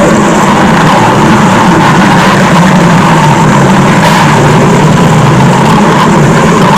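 Loud stomach-growl sound effect, looped as one steady, unbroken rumble with a strong low drone and a rougher midrange grind.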